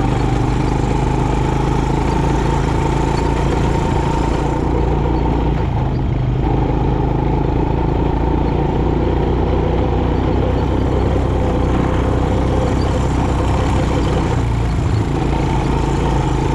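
Quad bike (ATV) engine running steadily under way, heard from the bike itself, its note shifting slightly a few times.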